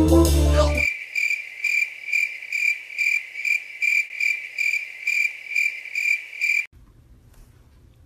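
Band music cuts off about a second in, then a cricket chirps in an even run of single high chirps, a little over two a second. The chirping stops abruptly near the end, leaving only faint room noise.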